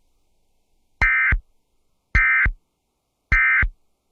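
Emergency Alert System SAME End-of-Message code: three short bursts of warbling digital data tones, about a second apart. They mark the end of the alert message.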